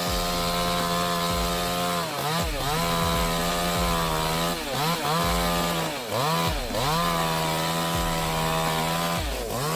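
Two-stroke chainsaw running at high revs while cutting wood, its engine pitch dipping briefly and recovering several times.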